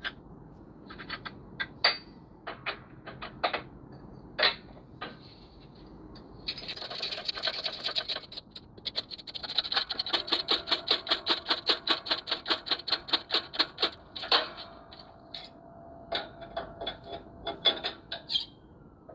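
Manual hydraulic shop press being worked to bring its ram down onto a control-arm bushing. First come scattered metal clicks and knocks. Then, for about seven seconds, there is fast, even clicking with a hiss, about five clicks a second, followed by a few more scattered clicks.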